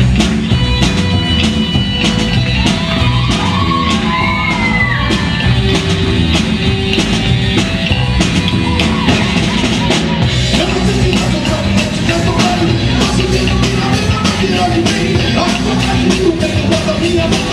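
Rock band playing live and loud: electric guitar, bass and drums, with a fast, steady drumbeat.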